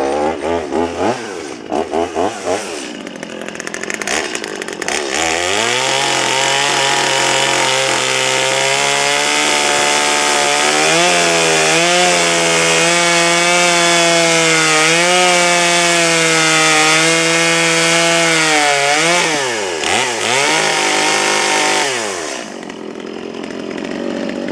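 Stihl two-stroke chainsaw given a few quick revs, then held at full throttle for a long cut through a spruce trunk, its pitch sagging slightly as the chain bites into the wood. Near the end it drops back to idle.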